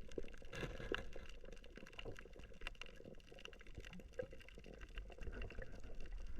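Faint bubbling and crackling of water, with many small irregular clicks over a low rumble.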